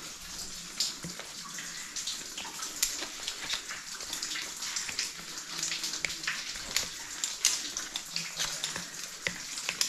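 Water dripping and trickling in a cave: many irregular drops ticking and splashing over a steady hiss of falling water.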